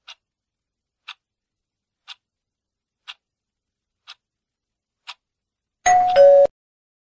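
Countdown-timer tick sound effect, one short tick each second, six times. About six seconds in, as the timer reaches zero and the answer is revealed, a louder short two-note sound effect plays, its second note lower.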